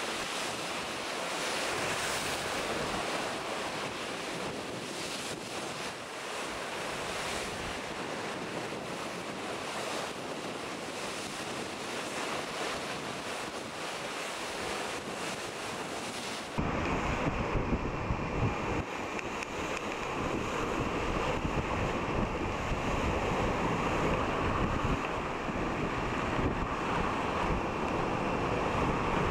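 Steady rush of sea water along the hull of an IMOCA 60 racing yacht sailing fast, with wind buffeting the microphone. A little past halfway the sound changes abruptly to a louder, deeper wind rumble with less hiss.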